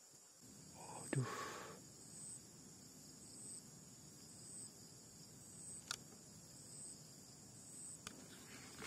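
Faint insect chirping: a short high-pitched chirp repeating about once a second. A sharp crack sounds about a second in, and two fainter clicks come later.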